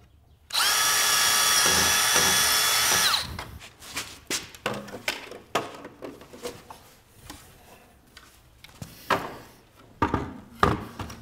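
Cordless drill boring a starter hole into an elk skull: a steady high whine for about two and a half seconds that sags in pitch as it stops. After it come scattered knocks and taps as the skull and antlers are handled.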